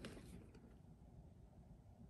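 Near silence: room tone, with a faint brief scrape at the very start as a plastic VHS clamshell case is picked up.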